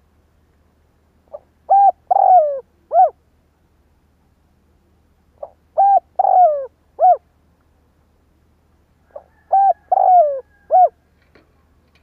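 Spotted dove cooing: three phrases about four seconds apart, each a soft short note followed by three coos, the middle coo the longest and sliding down in pitch.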